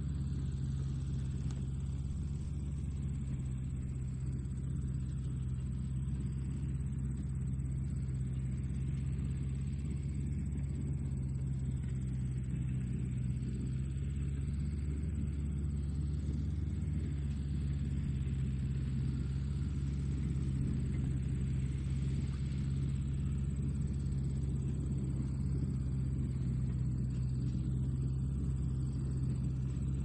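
Tractor engine running steadily at an even speed, a low, constant drone with no changes in pitch.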